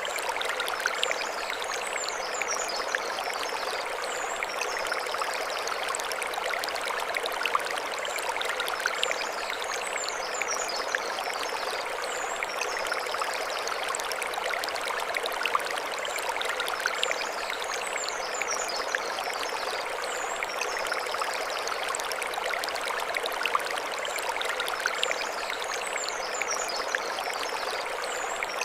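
Mountain stream flowing over stones, a steady splashing rush. Short high twittering phrases recur above it about every seven to eight seconds.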